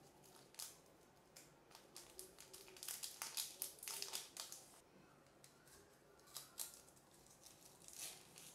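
Faint crinkling and rustling of an Amul milk chocolate bar's packaging being opened by hand: the printed outer wrapper slides off the inner paper wrapper, which is then peeled back from the gold foil. Irregular crackles, busiest about three to five seconds in.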